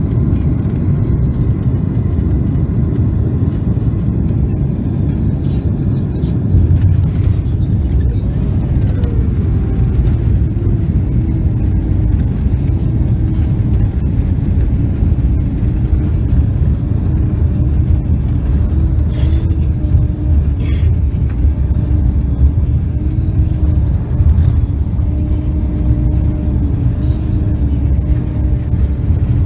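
Jet airliner landing, heard from the cabin beside the wing: a loud, steady rumble of engines and wheels on the runway. It jumps in loudness about six and a half seconds in, then a tone falls and settles into a steady hum as the plane rolls out with its spoilers raised.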